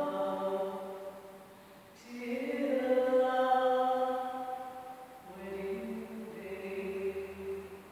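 A solo unaccompanied voice singing long held notes in a very reverberant hall, each note ringing on and dying away slowly after it stops. One note fades out at the start, a new note is held from about two seconds in, and another from just past the halfway point until near the end.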